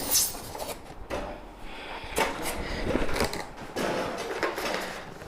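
Knocks, scrapes and clatter of a new microwave being handled, its door opened and the parts packed inside taken out.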